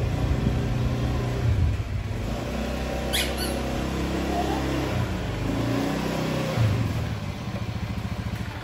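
Motor scooter's small engine running as it rolls slowly up and stops, cutting out near the end. A brief high squeak comes about three seconds in.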